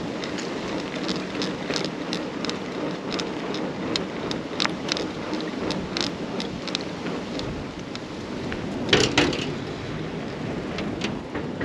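Carrera Hellcat mountain bike rolling over a rough path: steady tyre noise with many irregular rattling clicks, and a louder cluster of knocks about nine seconds in.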